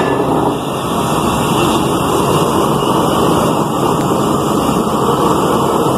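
Flames of a railway workshop's ring furnace burning with a loud, steady rushing noise as they heat a steel train wheel tyre for shrink-fitting onto the wheel.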